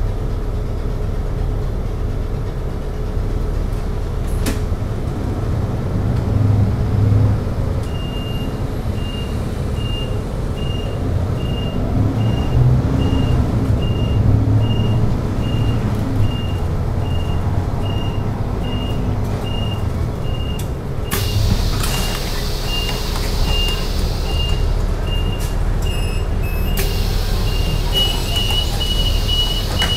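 City bus engine heard inside the cabin, rumbling low and rising and falling in pitch as the bus pulls away and drives. From about eight seconds in, a short electronic beep repeats about one and a half times a second. Near the end, loud bursts of air hiss come as the bus stops and its door opens.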